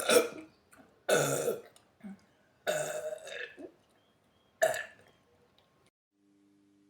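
A woman burping: a string of five burps in about five seconds, two of them long and drawn out, one short and soft.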